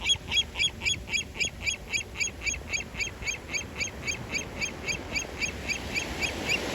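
A seagull calling in a steady, rapid series of short high notes, about five a second.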